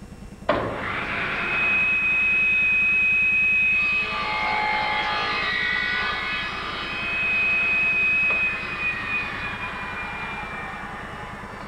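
Table saw switched on about half a second in, running up to a steady high whine. It crosscuts a board, which thickens the sound for a few seconds, and is then switched off, the whine slowly dropping in pitch and fading as the blade coasts down.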